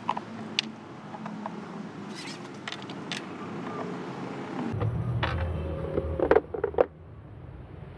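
Screwdriver clicking and scraping against bolts in the plastic housing of an electric knapsack sprayer as its bottom cover is unscrewed, with a cluster of loud clicks near the end. A low background rumble comes in abruptly about halfway through.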